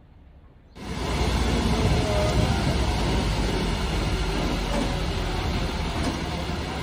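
Diesel engine of a fire service aerial platform truck running steadily close by, a deep steady hum under a loud rushing noise, cutting in abruptly about a second in.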